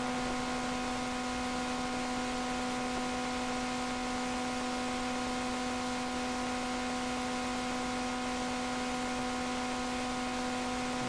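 Steady electrical hum with several fixed tones over an even hiss, unchanging throughout: background noise of the amplified sound system, with no one speaking into the microphone.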